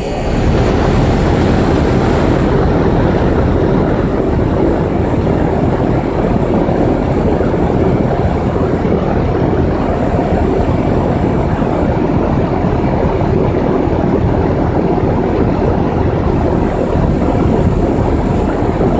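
2001 Goodman air conditioner running steadily just after starting up: a loud, even rush of fan air with a low hum underneath.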